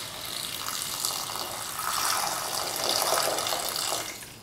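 Water poured in a thin stream from a glass into a pot of frying potato and bitter gourd, splashing onto the vegetables. The pour grows louder in the second half and tails off near the end.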